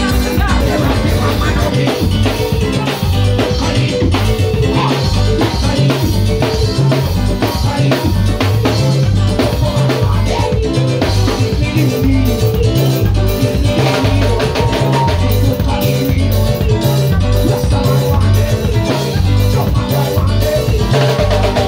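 Live band music: a drum kit keeps a steady beat over a heavy, repeating bass line.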